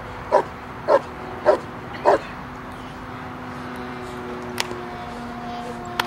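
German Shepherd dog barking four times, about two barks a second, at the helper in the Schutzhund hold-and-bark. The barking then stops as the dog grips the bite sleeve. After that a steady hum holds, and two sharp cracks come near the end.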